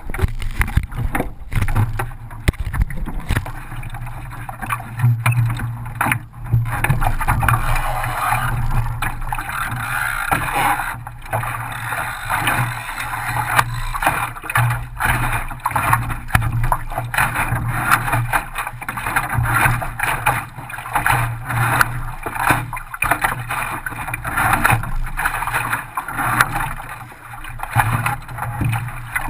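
Water rushing and slapping along the hull of an Optimist sailing dinghy under way, with frequent knocks and bumps through the boat, picked up by a camera mounted on the hull.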